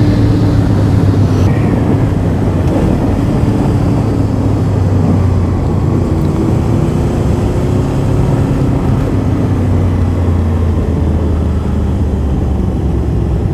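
Motorcycle engine running under way, its pitch drifting slightly up and down with the throttle, mixed with wind rush on the microphone.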